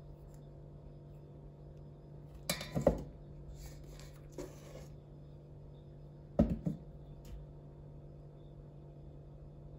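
Kitchen utensils being handled while glaze is spread: two short clusters of knocks, about three and six and a half seconds in, with some rustling between them, over a steady low hum.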